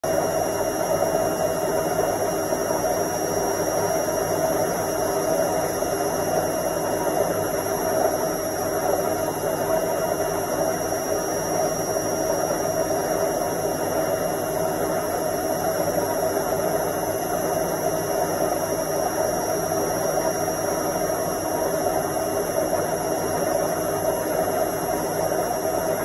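Indesit front-loading washing machine on its spin cycle: a steady whirring hum with a thin high whine over it.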